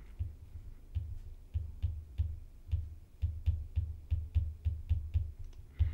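Pen stylus tapping and scratching on a tablet while handwriting, an irregular run of light ticks, each with a dull low knock, about three or four a second.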